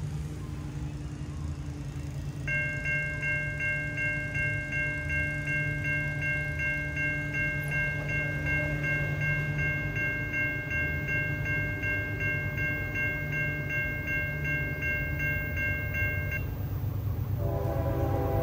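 Safetran Type 3 electronic crossing bell ringing about three strikes a second. It starts a couple of seconds in as the crossing activates and the gates lower, and stops a couple of seconds before the end once the gate arms are down. Near the end a locomotive horn begins to sound.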